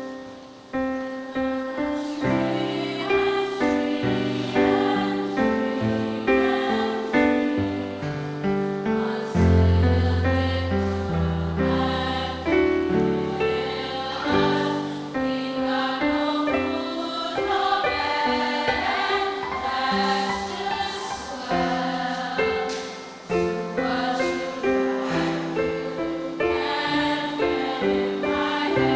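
A choir singing with piano accompaniment.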